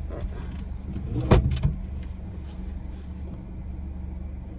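Car engine idling, a steady low hum heard inside the cabin. About a second in there is a sharp clunk, followed by a smaller knock.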